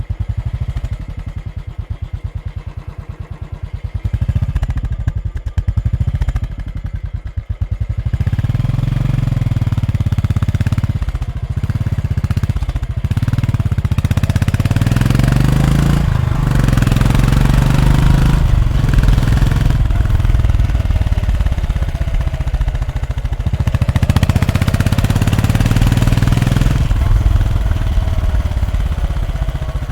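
Royal Enfield Bullet motorcycle's single-cylinder engine idling with an even thump. About four seconds in it is blipped a few times, then it is revved and run at higher speed for most of the rest, the revs rising and falling, before it settles back toward idle near the end.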